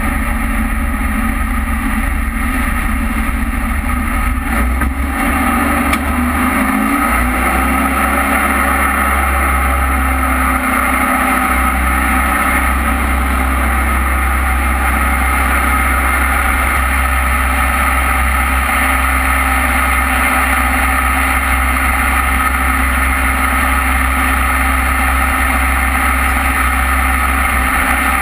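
Jet boat's engine running steadily with the boat under way, over the rush of water along the hull.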